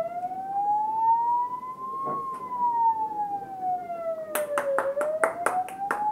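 A siren-like wail: one long tone sliding slowly up, then down, then up again. About four seconds in, quick regular clapping starts, around four to five claps a second.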